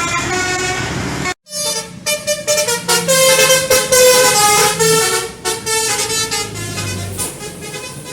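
Tour bus's telolet basuri multi-tone air horn playing quick melodic runs of changing notes, with a brief break about a second in, over the bus engine running underneath.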